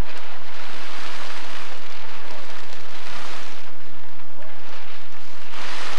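Large plastic tarp rustling and crinkling as it is handled and pulled up, in two stretches: a long one starting just after the start and a shorter one near the end.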